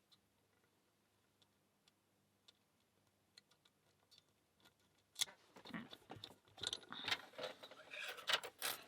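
Near silence with a few faint ticks, then from about five seconds in a busy run of light metallic clicks and rattles from lock picks, a tension tool and an Abus 65/15 padlock being handled.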